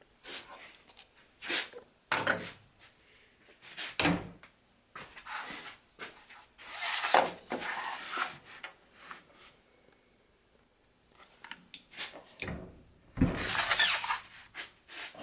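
Workshop handling sounds of wood and tools: scattered knocks and clunks, with two longer sliding, scraping sounds, one about seven seconds in and a louder one near the end.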